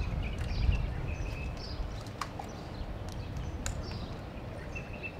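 Outdoor ambience: short high bird chirps about every second over a low rumble, with two light clicks about two and three and a half seconds in.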